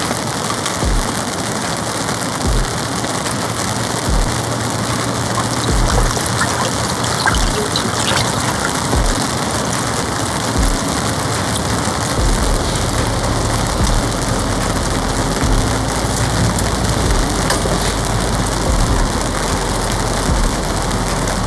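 Heavy rain beating on a polycotton (TC) tarp, a dense steady patter with occasional low thuds.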